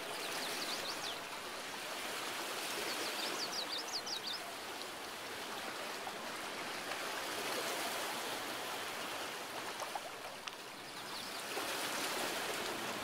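Stream water rushing and splashing over a rock ledge: a steady hiss of flowing water, with a few faint high chirps about half a second in, around three to four seconds in, and near eleven seconds.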